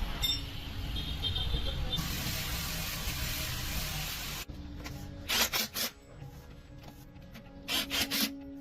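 Background music over workshop noise: a steady rubbing or scraping sound for about the first four and a half seconds, then two brief runs of quick scraping strokes.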